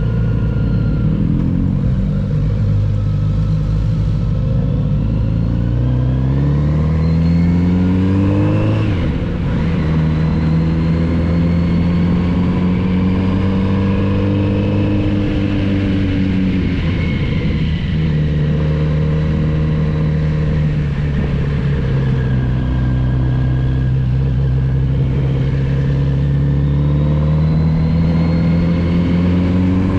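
Kawasaki Z900RS inline-four engine heard from the rider's seat, revs climbing for several seconds, then falling sharply about nine seconds in and dipping again around the middle, before climbing once more near the end as the bike is ridden through bends. Wind and road noise run underneath.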